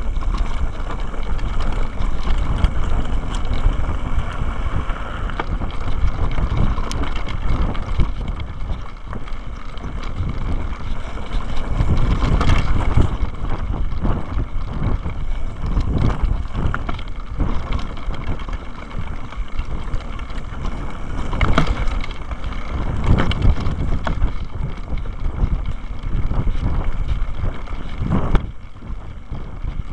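Mountain bike rolling fast down a rough trail: steady wind rumble on the bike-mounted camera's microphone, with the frame and parts knocking and rattling over rocks and bumps. The hardest knocks come around the middle and near the end.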